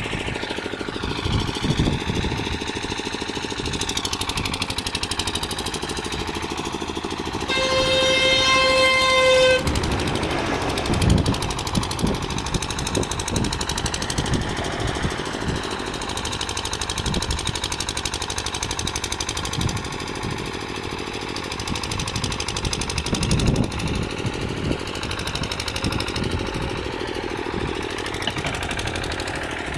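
An engine running steadily with a rapid pulsing beat. A vehicle horn sounds once for about two seconds, some seven to eight seconds in.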